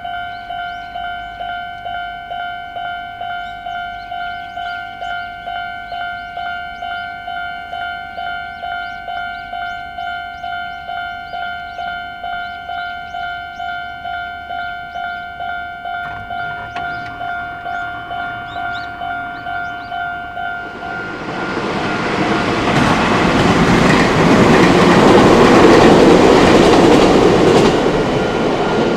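Japanese level-crossing warning bell ringing with a steady, high two-tone ding, about two strikes a second. About twenty seconds in, a train comes up and passes over the crossing. Its wheels and running noise swell loud and drown the bell, peaking a few seconds before the end.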